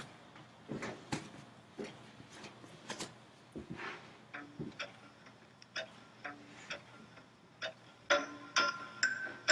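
Scattered sharp clicks and a few dull thumps at irregular intervals. About eight seconds in, music with sustained notes begins.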